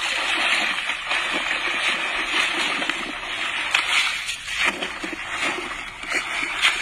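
Water splashing and sloshing as a long-handled landing net is plunged and churned in a hole in lake ice, with muddy water and slush pouring off the net onto the ice. The splashing is continuous, swelling and dipping with each stroke.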